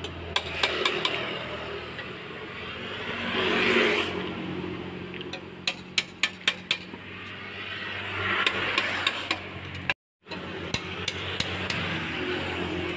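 Sharp metallic taps, several in quick succession about halfway through, over a steady low hum, with two swells of rushing noise.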